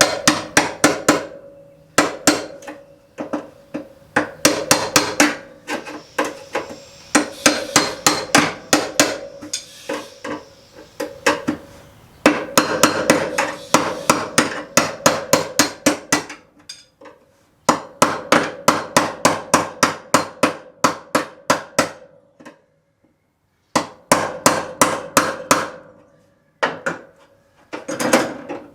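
Hammer blows on sheet-steel body panels, in quick runs of about four to five strikes a second with short pauses between runs, each strike ringing briefly.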